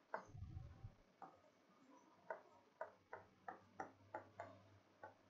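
A pen tapping and clicking on the glass of an interactive smartboard while writing: about ten faint, sharp clicks at uneven spacing, bunched more closely in the second half, with a brief low rumble in the first second.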